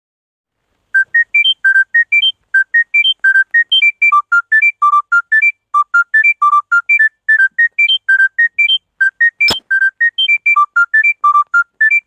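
Panasonic mobile phone ringtone: a fast melody of short, pure beeping notes, about four a second, stepping up and down in pitch, starting about a second in. A single sharp click cuts across it about nine and a half seconds in.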